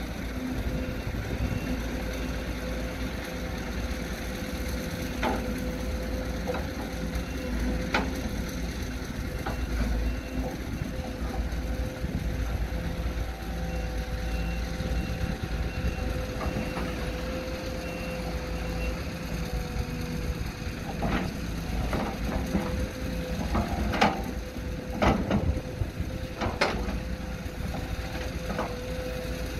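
Heavy earthmoving machine's engine running steadily with a constant whine. A high beeping comes in a short on-off pattern partway through, and a series of sharp knocks and cracks comes in the last third.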